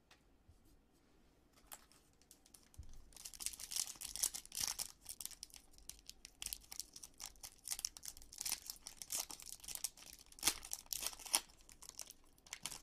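A foil trading-card pack wrapper being torn open and crinkled by hand, starting about three seconds in with a run of crackling rustles and rips, loudest near the middle and again toward the end.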